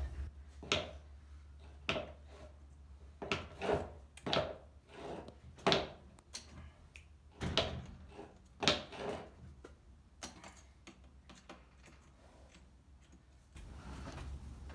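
A farrier's hand tools working a horse's shod hoof set on a hoof stand: a dozen or so sharp, irregular strokes over the first nine seconds, then quieter.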